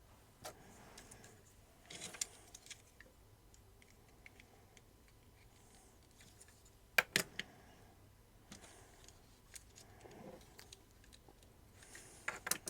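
Faint handling sounds of small plastic toy parts: scattered light clicks and soft rustling, with the loudest pair of clicks about seven seconds in and another short cluster near the end.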